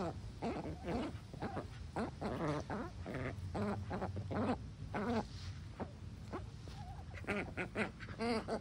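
Ducks feeding in grass, giving a steady run of short squeaky calls, two or three a second, with a quicker flurry of calls near the end: the happy chatter of ducks while eating.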